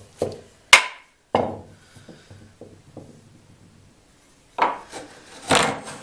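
A few sharp mallet knocks on the wooden body of a small Japanese hand plane (kanna), setting its blade, then a couple of lighter taps. Near the end come two rasping strokes of the plane taking shavings along a wooden edge.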